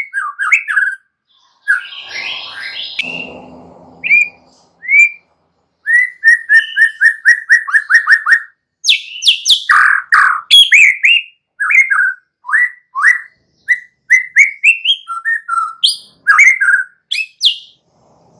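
White-rumped shama singing a loud, varied song of whistled and chirped phrases. There is a harsher, rasping stretch about two seconds in, and a fast run of evenly repeated notes from about six seconds. These are followed by quick sweeping whistles that rise high.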